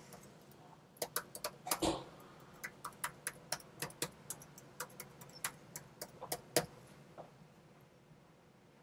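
Computer keyboard being typed on: quick, irregular keystroke clicks, starting about a second in and stopping near seven seconds.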